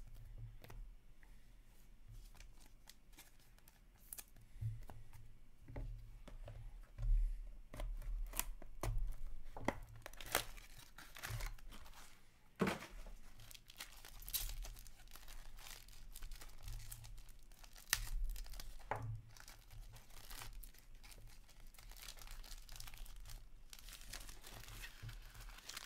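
Foil wrapper of a 2021-22 Upper Deck SP Game Used hockey card pack being torn open and crinkled by hand: a long run of irregular sharp crackles and rustles.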